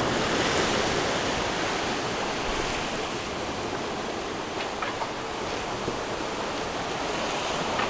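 Steady rush of sea water and wind around a sailing catamaran's hull as it surfs fast downwind through big waves.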